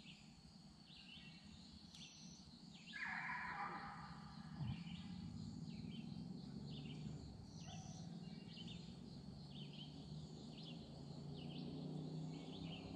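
A bird calling over and over, short falling chirps about once a second. About three seconds in, a brief rushing noise is followed by a single thump, and a low steady hum runs under the rest.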